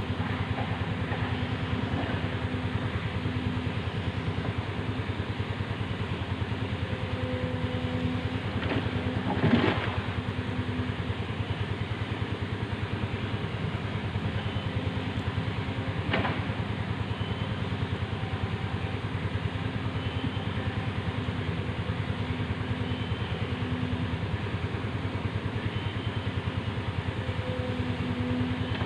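Excavator engine running steadily, its pitch swelling and easing now and then, with a sharp knock about ten seconds in and a lighter one about six seconds later.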